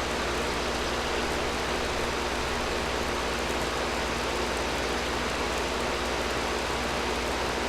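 Air conditioner running steadily, an even rush of blown air with a low hum underneath.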